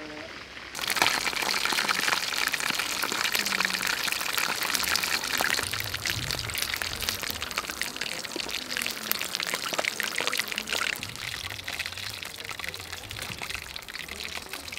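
Chicken drumsticks deep-frying in a wok of hot oil: a dense sizzling and crackling that starts suddenly about a second in and eases a little in the second half.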